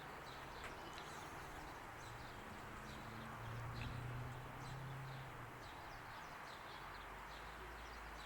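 Quiet background ambience: small birds chirping now and then over a steady hiss, with a low hum that swells briefly in the middle.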